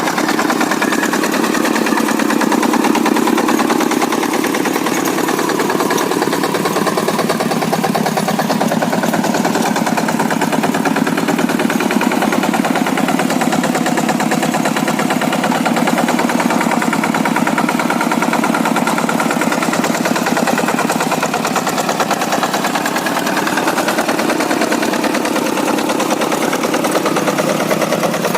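Old-model Kubota single-cylinder diesel engine on a Quick two-wheel hand tractor, running steadily with a fast, even chugging.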